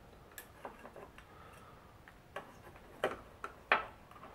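Irregular light clicks and taps from handling a small LED matrix circuit board and its wires. The loudest knocks come about three seconds in and shortly before the end, as the board is turned over and set on the wooden bench.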